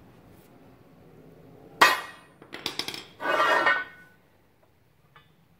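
Steel angle iron handled against metal and concrete: one sharp ringing clang, a few light metallic clinks, then a short scrape of steel sliding into place.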